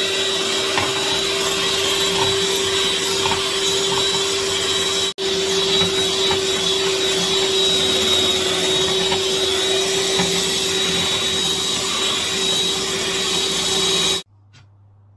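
Electric mixer motor running steadily, a constant whine over whirring noise, with a split-second break about five seconds in; it cuts off abruptly near the end.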